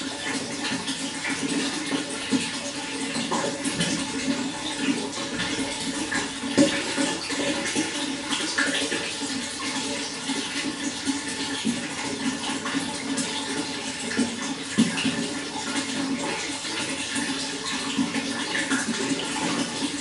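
Running water flowing steadily, with many small splashes and gurgles.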